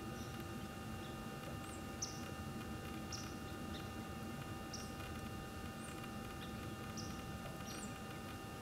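Short, high-pitched chirps from a small animal, repeated about once a second, some sliding up and down in pitch, over a faint steady hum.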